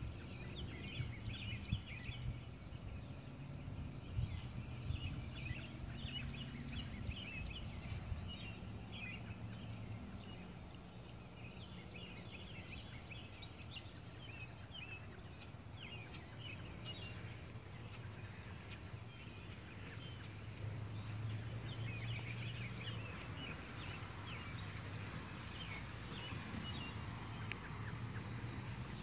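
Birds chirping: many short calls, busiest in the first ten seconds and again in the last several, over a steady low hum.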